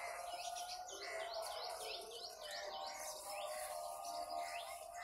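Small birds chirping: a fast run of short, high chirps, about four or five a second, for the first three seconds, then scattered single chirps.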